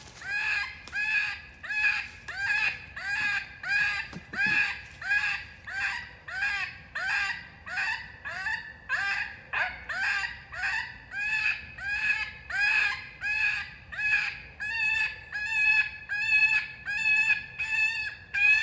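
FoxPro electronic predator call playing a recorded prey distress call through its speaker: a steady run of short squalls, about one and a half a second, each curving up and then falling.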